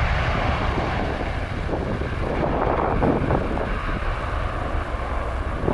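Jet engines of an Airbus A330 at takeoff thrust, a steady rush as the airliner lifts off and climbs away, with wind rumbling on the microphone.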